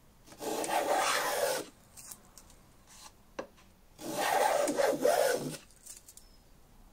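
Small brass infill thumb plane with an O1 tool-steel blade planing the edge of a board of utile: two strokes of about a second and a half each, each taking off a curled shaving, with a couple of light taps between them.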